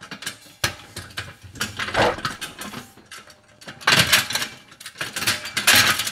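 Harbor Freight Haul-Master arched aluminum and steel folding loading ramp clanking and rattling as it is folded over at its hinge, its bolts not yet tightened so the parts are loose. A run of metal knocks and rattles, busiest about four seconds in and again near the end.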